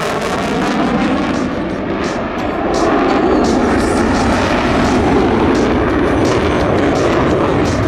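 F-35A Lightning II fighter jet, its single F135 afterburning turbofan running loud as it flies by. A shifting whoosh comes in the first second, then a deep rumble swells about three seconds in, with a crackling edge.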